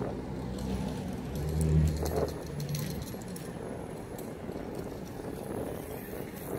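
City street ambience with passing traffic: a low engine hum swells and fades about two seconds in, with scattered light clicks and rattles.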